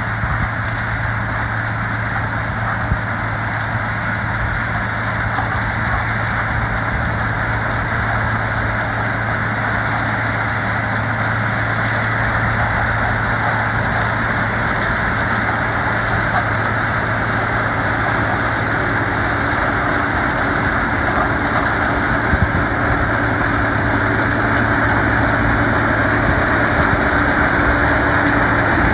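Heavy diesel farm machinery running steadily during sugarcane harvesting: a constant low engine hum under a wide rushing noise, growing a little louder toward the end.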